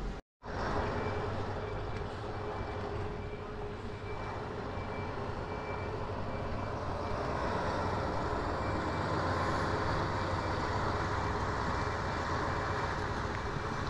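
Mercedes-Benz O403 coach converted to a motorhome driving slowly off a ferry ramp, its diesel engine running steadily and growing louder as it comes closer. A steady high tone sounds over the engine throughout.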